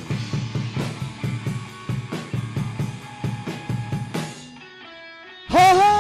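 Live band playing an instrumental break: guitar over a steady drum beat, which drops away about four seconds in. Near the end a loud held note comes in.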